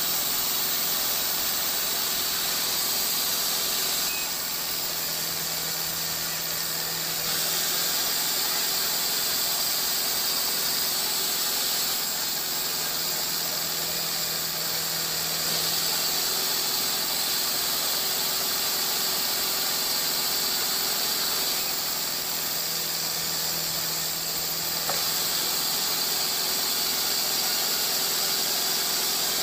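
Large sawmill saw cutting through a log amid running mill machinery: a steady high-pitched whine and hiss over a constant mechanical hum, stepping a little louder or quieter a few times.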